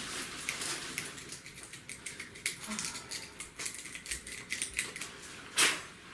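A tool scraping and scratching rust out of a rusted metal taillight bulb socket, an irregular run of short scratches and clicks, with one louder scrape near the end.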